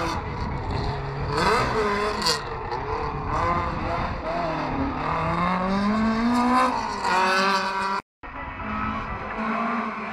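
Classic rally car engine revving hard, its pitch rising and falling repeatedly as the car is thrown through tight barrier-lined turns, with some tyre squeal. The sound drops out completely for a moment about eight seconds in.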